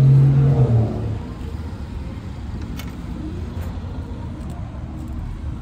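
Power wheelchair's drive motors humming steadily as it drives along a concrete path. The hum stops about a second in, leaving a low rumble.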